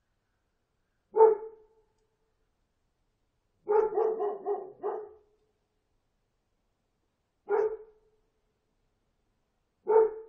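A dog barking: a single bark about a second in, a quick run of about five barks around four seconds in, then single barks near eight and ten seconds.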